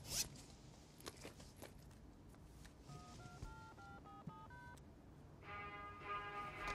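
Touch-tone telephone keypad beeping as a number is dialed: a quick run of about ten short dialing tones. Music starts near the end.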